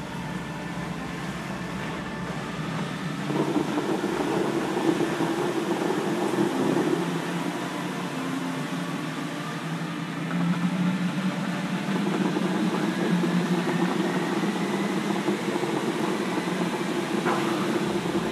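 Bellagio fountain jets spraying and water splashing back into the lake: a steady rush that grows louder about three and a half seconds in.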